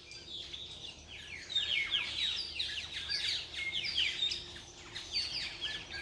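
A flock of Australasian figbirds calling: many short, high chirps that slide downward, overlapping one another in a continuous chatter.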